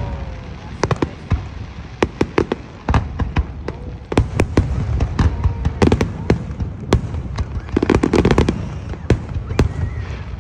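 Aerial fireworks shells bursting overhead: a string of sharp bangs and crackles over a low rumble, sparse at first, then coming thick and fast from about four seconds in, with a dense volley near the end.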